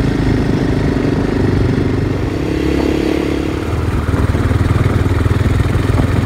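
A vehicle engine running as it drives along, a steady low throbbing note that rises a little in the middle and then settles back.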